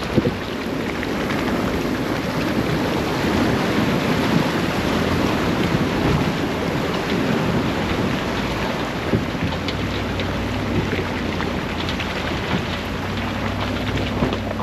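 Truck driving along a wet, flood-soaked road: a steady rushing wash of tyre and water noise, with the engine's low hum coming through more clearly about two-thirds of the way in.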